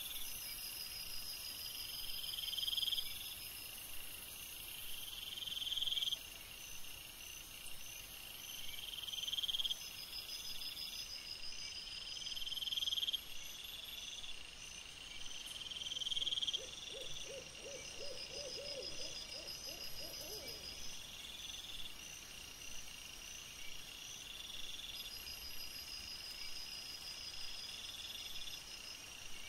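Crickets singing: one repeats a trill that swells and breaks off about every three and a half seconds, and a quieter, higher pulsed trill repeats alongside it. About halfway through, another animal gives a few seconds of quick, low pulsed calls that rise slightly in pitch.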